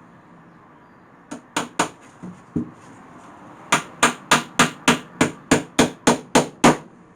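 Hammer driving nails into pallet wood: a few scattered taps, then a quick, even run of about eleven strikes, three or four a second.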